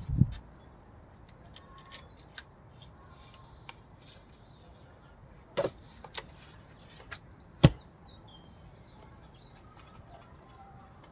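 Scattered sharp knocks and clicks, with two louder knocks a little past the middle; small birds chirp in the background toward the end.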